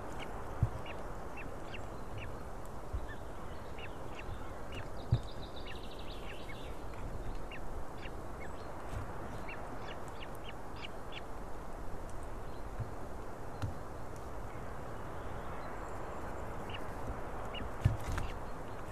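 A steady outdoor background rush with many short, high bird calls scattered through it, and a brief higher trill about five seconds in. A few dull knocks, the loudest sounds, come about half a second in, about five seconds in and near the end.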